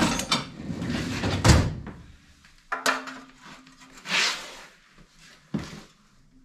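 A metal tool chest drawer handled and tools clattering as a wrench is taken out, followed by a few separate metal clanks and clicks as a long-handled wrench is worked at the engine's fuel tank bolt. The clatter is busiest in the first couple of seconds and thins out later.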